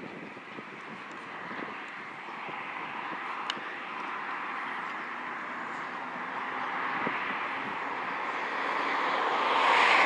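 Classic Volkswagen Beetle race car's air-cooled flat-four engine running hard as the car approaches on a dirt course, growing steadily louder as it nears.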